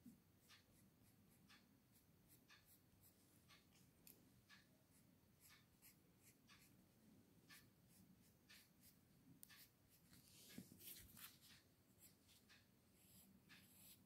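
Faint scratching of a graphite pencil on paper: short strokes at about one or two a second, with a quicker, louder run of strokes about ten seconds in.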